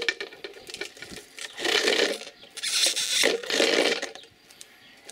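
A PET plastic bottle being cut into tape on a homemade bottle cutter: the strip rasps as it is pulled through the blade, in two stretches about a second and a half in and around three seconds in, stopping about four seconds in.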